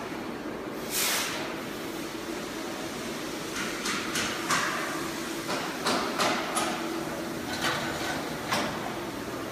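Workshop background: a steady hum under about ten short scuffs and knocks, most of them in the second half.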